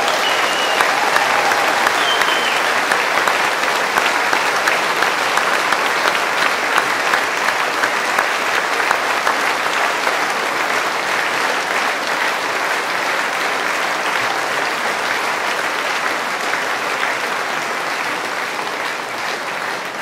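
Audience applause, a dense steady clapping that slowly dies down toward the end.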